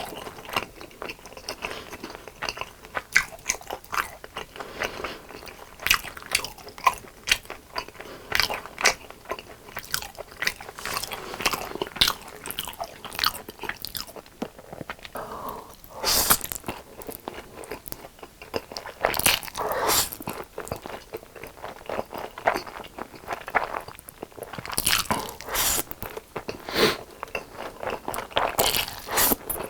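Close-miked biting, crunching and chewing of crispy fried chicken: a dense, irregular run of sharp crunches as the coating breaks, with a few louder crunches about halfway through and again near the end.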